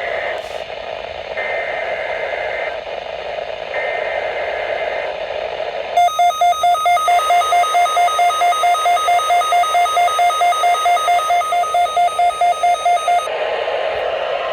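NOAA Weather Radio SAME header over radio static: three bursts of two-tone digital data screech, each a little over a second long, marking the start of the Required Weekly Test. About six seconds in, a rapid alarm beeping starts, about four beeps a second, and cuts off after some seven seconds.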